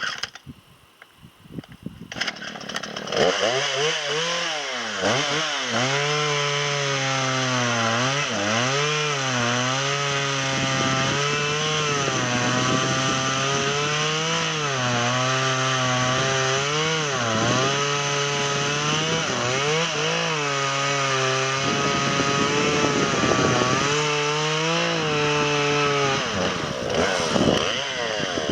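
Chainsaw revving up about three seconds in and running at high throttle while cutting into a bale, its engine pitch dipping and recovering again and again as the chain takes load. The chain has its rakers ground right down and its cutters filed to a knife edge for this job; the saw bogs briefly but does not stall.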